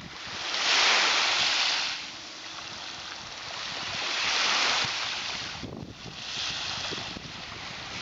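Small sea waves washing onto a sandy beach: a hiss of surf that swells and fades three times, loudest about a second in.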